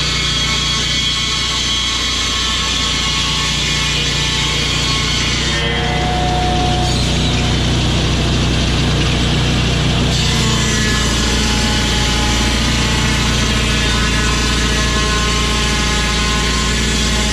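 Engine-driven saw running steadily while milling timber, its motor note held without revving. The sound changes in tone between about six and ten seconds in.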